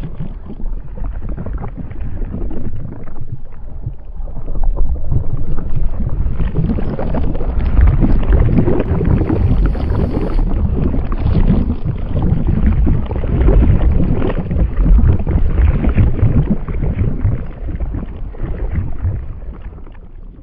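A rushing, rumbling sound effect with no tune, heaviest in the low end, swelling over the first few seconds and fading out near the end: the whoosh-and-rumble sound design of an animated logo reveal.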